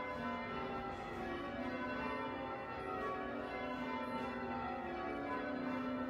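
Church bells being change-rung: a continuous run of overlapping bell strokes whose tones ring on into one another, heard from inside the church.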